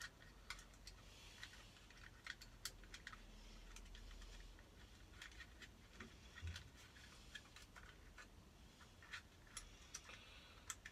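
Faint, irregular clicks and taps of a plastic interior light fitting being handled as LED panels and their wiring are pushed into place.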